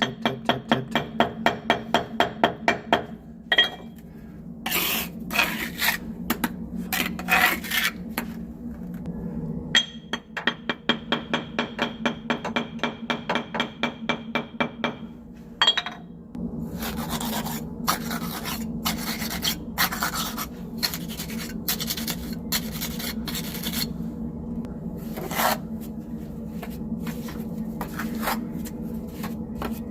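Mortar being worked against firebrick with a trowel: two runs of quick, even scraping strokes, about seven a second, with slower single scrapes between, then a long stretch of continuous rough scraping and rubbing.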